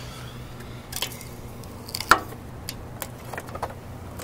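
A few sharp clicks and taps from a hand-held camera being moved and handled, the loudest about two seconds in. A steady low hum runs underneath them throughout.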